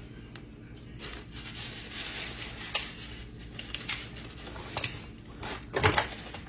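Kitchen handling sounds: a packet of onion soup mix rustling as it is opened and emptied, and scattered clinks and scrapes of mixing in a dish, with one louder knock near the end.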